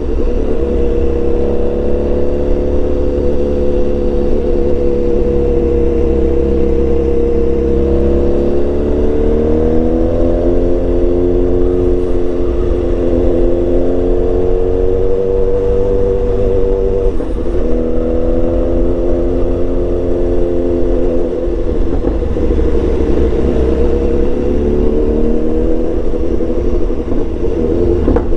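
BMW S1000XR's inline-four engine with a full exhaust system, running on the move. Its note rises and dips gently a few times as the throttle changes, over a steady low rumble.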